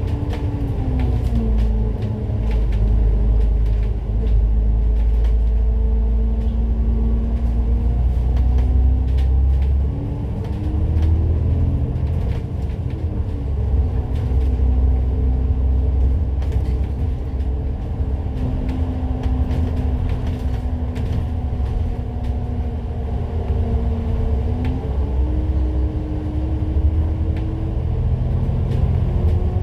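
A Citybus bus's diesel engine and drivetrain running under way, a loud low rumble with an engine note that falls and rises several times as the bus changes gear and speed.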